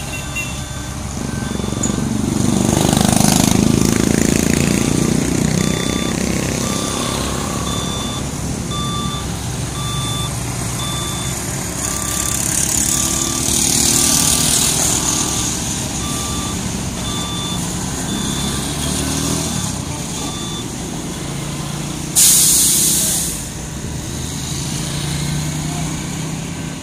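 Ready-mix concrete mixer truck's diesel engine running as the truck reverses up to a concrete pump, its reversing alarm beeping evenly for about fifteen seconds. Near the end there is a loud, short hiss of air brakes.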